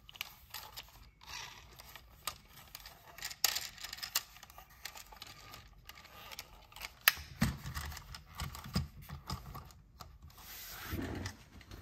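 A hard plastic toy R/C ATV being handled: many small clicks, taps and scrapes as it is turned over in the hands. Low thumps follow from about halfway as it is put down on the table and moved on its wheels, with a short rolling rush near the end.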